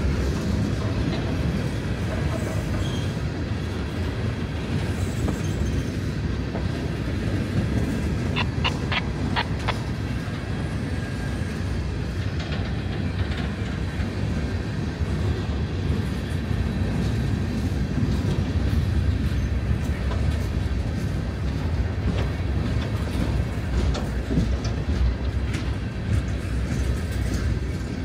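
Empty coal cars of a freight train rolling past: a steady low rumble of steel wheels on rail with clickety-clack and knocks. About eight seconds in comes a brief run of high-pitched squeals.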